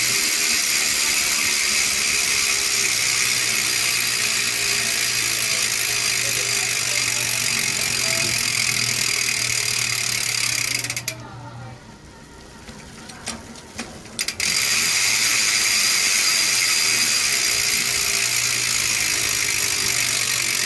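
Weapon Ambush bicycle hub's magnet-type ratchet freehub buzzing steadily as the wheel coasts. It drops away for about three seconds a little past halfway, leaving a few scattered clicks, then buzzes again.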